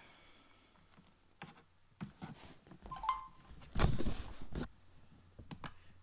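A phone and its charging cable being handled close to the microphone: scattered clicks, taps and rustling, a brief tone about three seconds in, and a louder clatter of knocks a little after.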